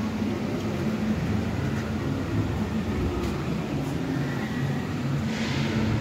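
Steady low rumbling background noise, with a brief hiss near the end.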